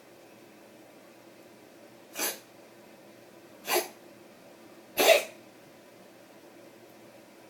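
Three short, breathy coughs, spaced about a second and a half apart, the last one the loudest.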